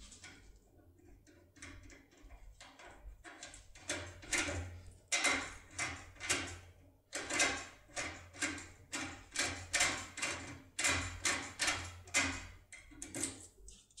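A foil-wrapped ABUS impression pick being rocked up and down in the keyway of an ABUS euro-profile cylinder lock to open it: a run of short metallic scraping strokes, about two a second. The strokes are soft at first and grow louder and more regular about four seconds in.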